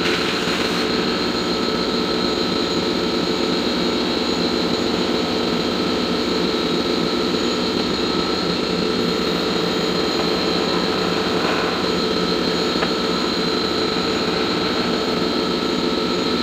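CNC milling machine running, a steady mechanical hum with a high whine that holds unchanged.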